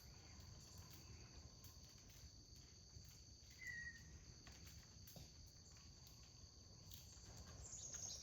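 Faint, steady chorus of crickets trilling high, with one short high chirp about three and a half seconds in.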